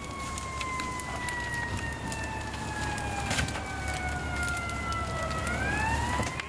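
Emergency vehicle siren wailing: its pitch falls slowly for about five seconds, then swings back up near the end, over a steady low rumble.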